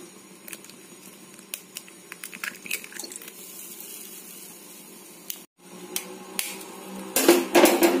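Eggs being broken into oil in a non-stick kadai and starting to fry, with a soft sizzle and scattered light taps and clicks. A cluster of louder sharp clicks and knocks comes near the end.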